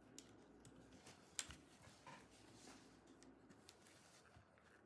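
Near silence with a few faint clicks and light scrapes from a plastic pry tool and gloved hands working a laptop battery loose from the chassis; the sharpest click comes about one and a half seconds in.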